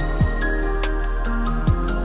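Background music: a chill electronic instrumental with a steady beat, kick drums and hi-hat ticks under held synth notes.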